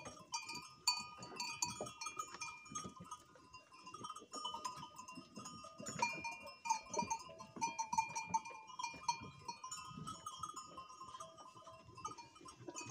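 Sheep feeding on straw at troughs, their neck bells ringing softly with a steady jingle over many small rustles and clicks.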